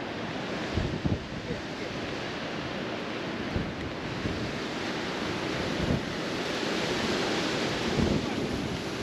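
Strong wind blowing over the microphone: a steady rushing with occasional low buffeting thumps from gusts.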